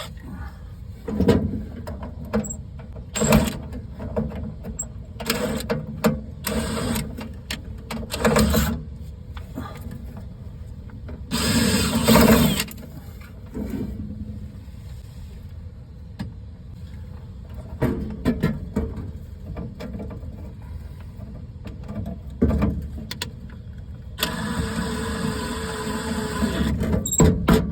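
Power driver spinning in two short runs, about a second near the middle and about three seconds near the end, among scattered clicks and knocks of tools and parts being handled.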